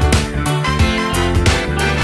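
Background music with a steady beat: an upbeat instrumental track with a bass line and guitar.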